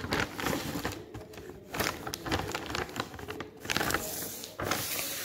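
Clear plastic packaging of a painting kit rustling and crinkling as it is handled, in a run of quick, irregular clicks and crackles.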